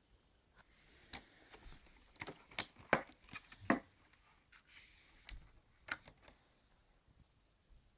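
Clear plastic clamshell packaging handled and turned over in the hands, giving a run of crinkling and sharp clicks through the middle few seconds.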